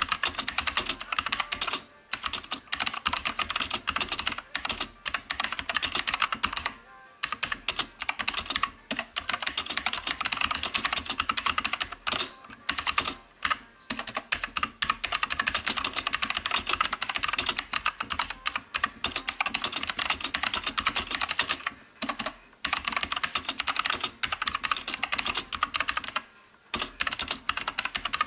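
Fast, continuous typing on a cheap knockoff mechanical keyboard with clicky blue switches, broken by a few short pauses.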